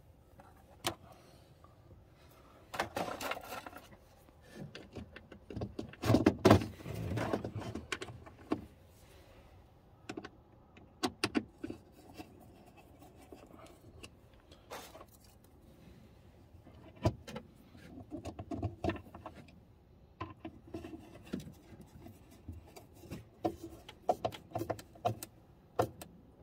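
Scattered clicks, rattles and rustling of hand work on a winch contactor: wires being handled and a screwdriver turning the contactor's mounting screws into plastic. The loudest clatter comes about three and six seconds in.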